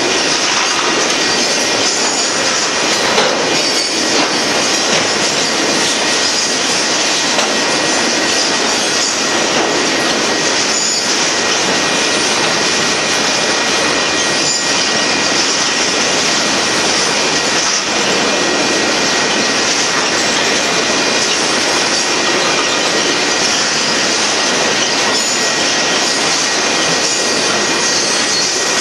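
Union Pacific merchandise freight train's cars rolling past a grade crossing, a steady, continuous rumble and rattle of steel wheels on rail with a strong high hiss.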